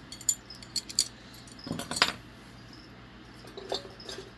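Small metal pegboard hooks clinking and rattling against each other as they are handled: a few sharp clinks in the first two seconds, then one more near the end.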